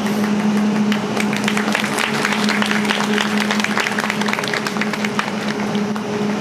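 Audience clapping for a figure skater as he takes the ice: separate claps that thicken about a second in and thin out toward the end. A steady low hum runs underneath.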